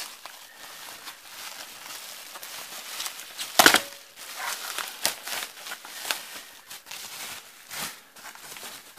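Plastic bubble wrap being peeled back and handled, crinkling and rustling unevenly, with one louder crackling crunch about three and a half seconds in.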